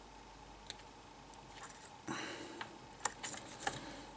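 Light clicks and taps of a screwdriver and soldering iron against a controller's circuit board while a stubborn MOSFET is rocked loose during desoldering, with a brief hiss about two seconds in and a few sharper clicks near the end.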